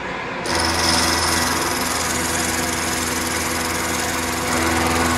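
Vertical milling machine running, its end mill cutting a brass tappet block: a steady machine hum with the hiss of the cut, which comes in abruptly about half a second in.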